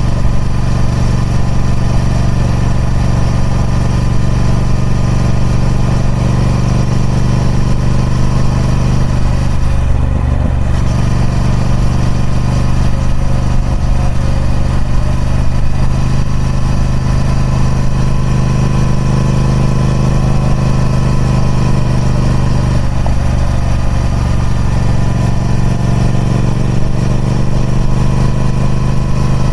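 Triumph Speed Twin 1200's 1200cc parallel-twin engine running steadily through its stock exhaust, with a brief dip in its sound about ten seconds in.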